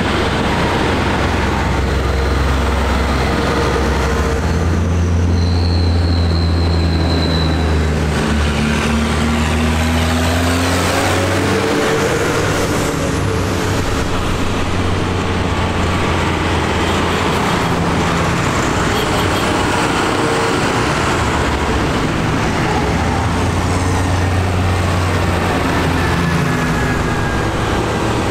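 Diesel farm tractors, among them John Deeres, driving past one after another at road speed. Their engines run loudly and without a break, the engine note shifting in pitch as each tractor goes by.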